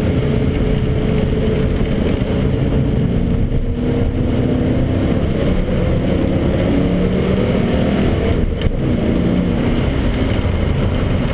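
BMW 540i's V8 engine heard from inside the cabin, running hard on track under road noise, with two brief dips in the sound, the first about three and a half seconds in.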